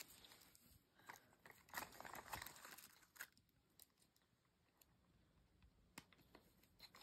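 Faint crinkling and rustling of a small plastic wrapper being handled, mostly in the first three seconds, then a few light ticks.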